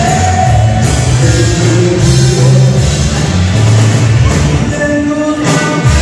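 Live rock band playing a song with a singer over electric guitars, bass and drums, loud and continuous.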